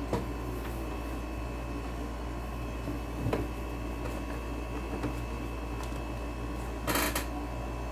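Steady electrical hum of room and equipment noise, with a light click at the start, another about three seconds in, and a short rustling knock about seven seconds in, as hands handle the monitor's edge and controls.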